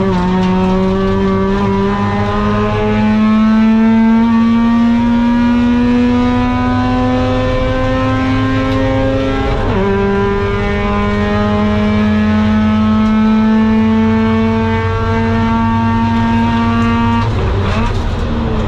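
Mazda RX-8's two-rotor Renesis rotary engine, the 192 hp 4-port version with a long-tube exhaust and Borla muffler, pulling hard under load with its pitch climbing slowly. It drops sharply on an upshift about halfway, climbs again in the next gear, then breaks off near the end as the throttle is lifted.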